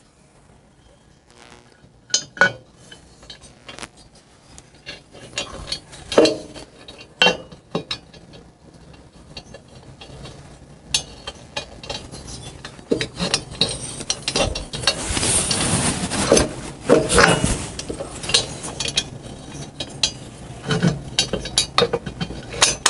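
Metal-on-metal clinks and knocks as a finned aluminium cylinder head is set onto a Harley-Davidson flathead cylinder and bolts are started to hold it. Scattered single knocks give way to a denser stretch of rattling and scraping in the middle, then single clinks again.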